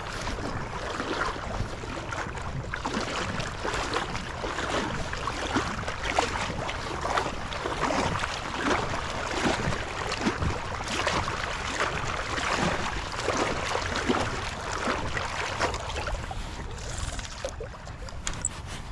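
Small creek running over shallow riffles: a steady splashing rush of water, a little quieter near the end.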